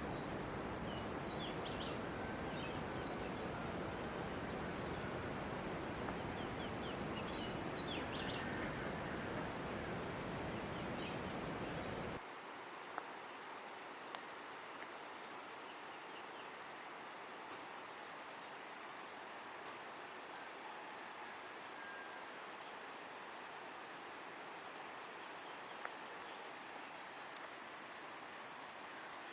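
Steady rushing noise of falling water with birds chirping over it, cutting off abruptly about twelve seconds in. Quieter outdoor ambience follows: a steady high-pitched insect drone, occasional bird chirps and a few faint clicks.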